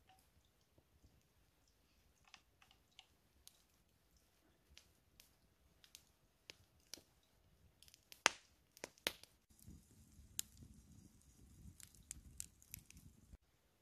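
Small wood campfire crackling, with scattered snaps and pops, the sharpest a few around eight to nine seconds in. A soft low rushing noise joins for the last few seconds.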